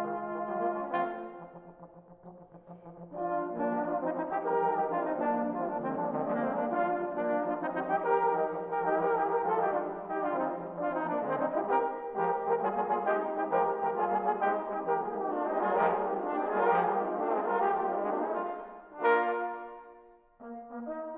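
A tenor horn ensemble playing a classical piece in harmony. The music drops to one soft held low note about two seconds in, then comes back in full, and breaks off briefly after a loud chord near the end.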